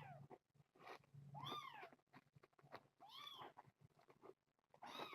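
A kitten meowing repeatedly, high-pitched calls each rising and falling in pitch, about one every couple of seconds.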